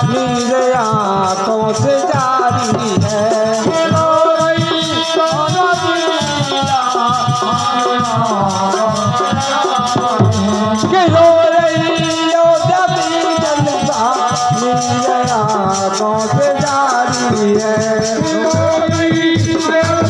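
Indian devotional sankirtan music: a man singing a bhajan into a microphone over a harmonium, with a dholak and small hand percussion keeping a fast, steady beat.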